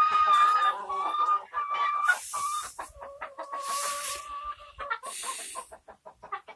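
Chickens calling: long drawn-out notes held on one pitch for a second or more, then a quick run of short clucks near the end, with a few brief hissy rustles in between.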